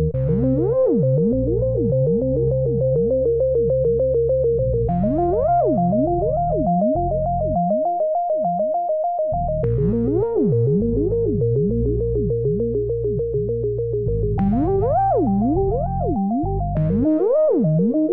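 Synthesizer music: held keyboard notes over a steady bass, with notes sweeping quickly up and down again and again; the held note steps to a new pitch about every five seconds.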